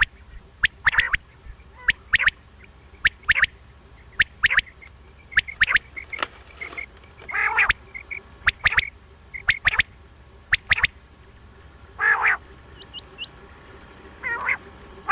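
Common quail (batair) calling over and over: sharp clipped notes in quick pairs and triplets about once a second, with a few longer, rougher calls mixed in. It is a recorded quail call of the kind played as a hunting lure.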